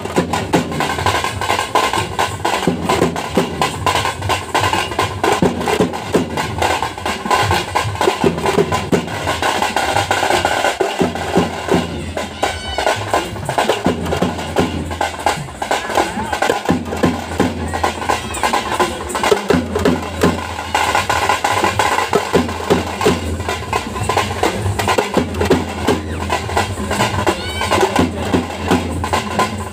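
Several barrel drums beaten with sticks and hands in a fast, dense, driving rhythm of live folk drumming, with crowd voices mixed in.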